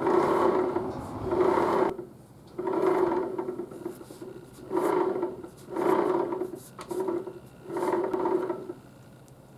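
A small motor whirring in about seven short bursts with brief pauses between, each burst at a steady pitch.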